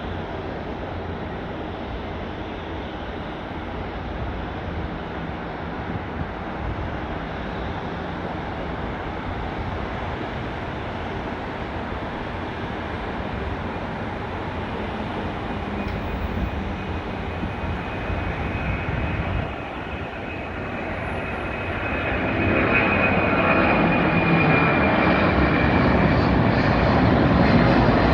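Boeing 767-300 freighter's twin turbofan engines at takeoff power, a steady jet rumble. A high whine comes in partway through, and the sound grows clearly louder over the last several seconds as the aircraft comes closer.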